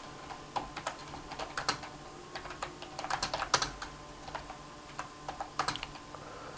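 Typing on a cheap wired membrane keyboard, the Pro HT: irregular clusters of plastic key clicks with short pauses between them.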